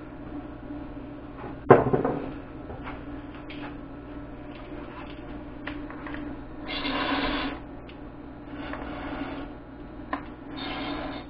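A sharp knock about two seconds in, then several short hisses, each about a second long, of oxygen blown from a brass gas-welding torch tip into the battery cells to flush out built-up hydrogen before the flame is lit.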